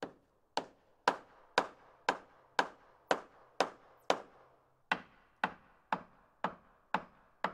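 A steady run of sharp, hammer-like knocks, about two a second, each dying away quickly, with a slightly longer pause a little past halfway.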